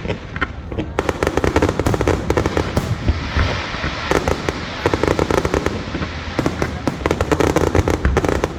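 Fireworks going off in dense volleys of rapid crackling pops, many a second, rising and falling in several surges over a low rumble.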